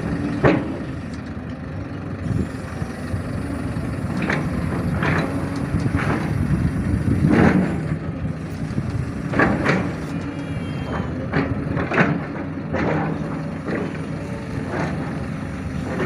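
Heavy diesel work machine's engine running steadily under load, with a dozen short sharp clanks and hissing bursts scattered over it as the crew works.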